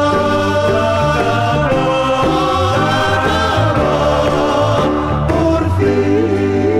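Music: a 1970 Spanish pop single playing, with a band, a steady bass line, held notes and singing.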